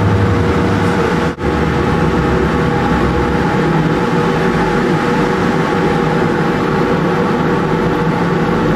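A ship's engine running steadily, a constant mechanical hum with a steady drone underneath. The sound drops out briefly just over a second in.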